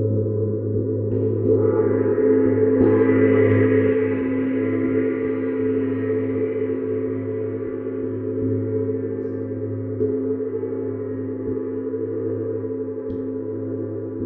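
Neptune planet gong played with a soft mallet, ringing in a continuous wash of deep sustained tones. Brighter overtones build up about two seconds in and die back down over the next several seconds.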